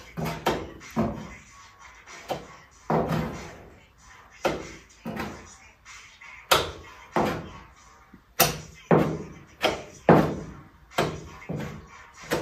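Metal body-filler spreader scraping glazing putty across a car's steel quarter panel in repeated short strokes, about one or two a second, each a sharp scrape that quickly fades.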